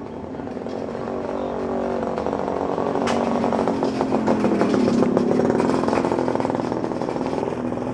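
Motorcycle engine passing by: it grows louder to a peak about five seconds in, its pitch drops as it goes past, and then it fades.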